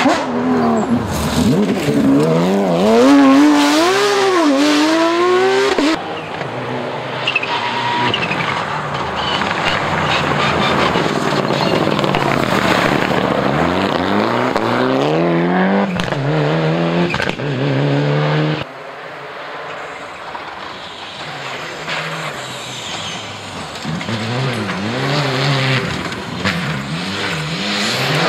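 Rally cars at full race pace on a loose gravel stage: the engines rev hard and rise and fall in pitch again and again through gear changes, while the tyres slide and scrabble on the dusty surface. The sound changes abruptly twice as one car gives way to the next.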